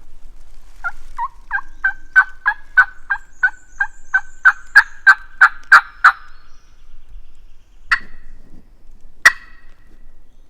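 Turkey yelping: a run of about sixteen yelps that grows louder and a little quicker, then two single sharp notes a second and a half apart.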